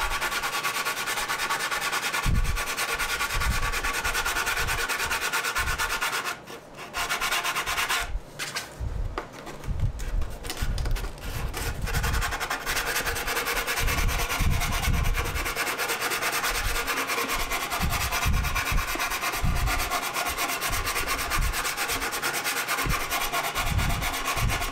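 Sandpaper wrapped over a wooden stick rubbed back and forth by hand on a putty-coated 3D-printed plastic helmet, a steady rasping with a couple of brief pauses about six and eight seconds in. It is smoothing down rough marks left by print supports in a tight visor corner.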